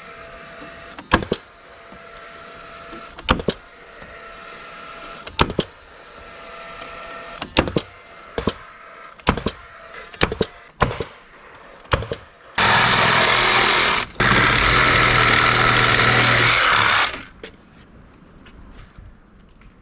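A series of sharp knocks a second or two apart, then a power tool running loudly for about four seconds, with a brief stop after the first second or so.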